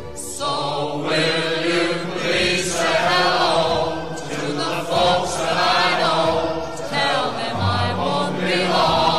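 Music with several voices singing long, wavering notes together in a choral style over a sustained low accompaniment.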